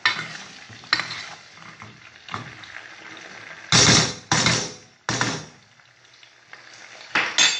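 Food going into hot oil in an enamel pot: a few light knocks of utensils on the pot, then four brief, loud sizzles as pieces hit the oil.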